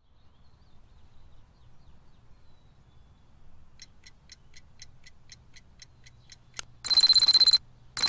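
Egg-shaped alarm clock ticking about four times a second over a faint low hum, then ringing loudly for under a second, stopping, and starting to ring again near the end as a hand comes down to silence it.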